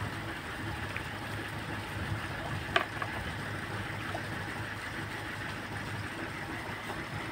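An engine running steadily, with one sharp click about three seconds in.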